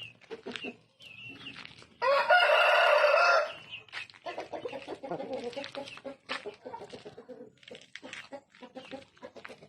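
Shamo rooster crowing once, a loud crow of about a second and a half starting about two seconds in, followed by a run of softer, lower calls.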